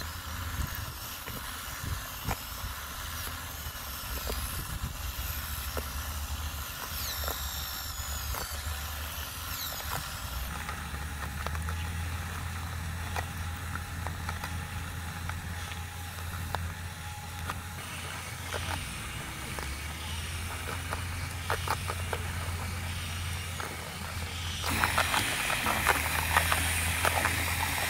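Small DC motors of a homemade model bucket wheel excavator whirring steadily as the bucket wheel digs into sand, with a scatter of light gritty clicks from sand falling. About three seconds before the end the sand scraping and crackling grows louder as the wheel bites into the sand close by.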